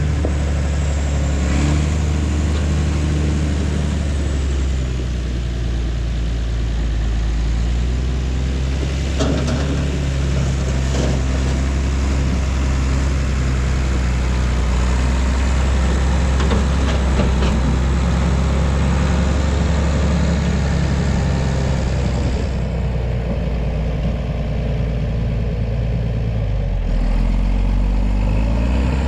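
Heavy machine's engine running steadily, with a few sharp clanks about nine to eleven seconds in and a change in its pitch near the end.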